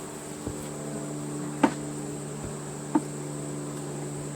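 Honeybees buzzing steadily in a low hum around an open hive. A few sharp knocks cut through, the loudest a little over a second and a half in and another about three seconds in.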